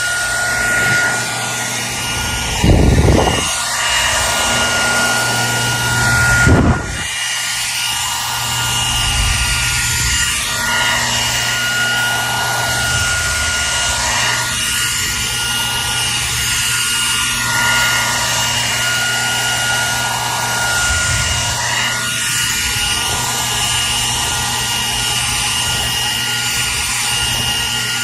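Hair dryer running steadily: a constant rush of air with a steady high whine and a low hum. Two brief louder low rumbles come about three and about six and a half seconds in.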